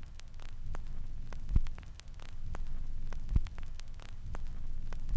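Steady low hum with faint crackle, and a dull thump about every two seconds.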